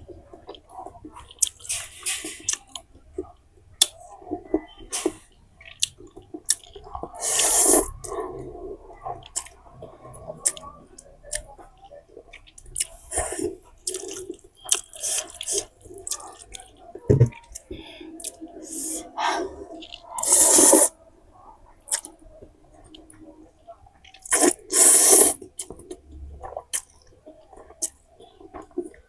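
Close-up eating sounds from spicy instant noodles: wet chewing and small mouth clicks, broken by several louder bursts of slurping, the loudest about a third of the way in, two-thirds in and near the end.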